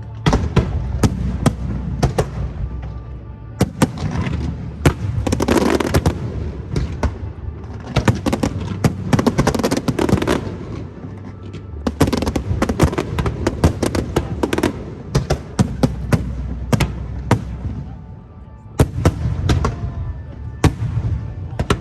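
Aerial fireworks exploding in rapid volleys, many sharp bangs and crackles coming in dense clusters, with a short lull a few seconds before the end.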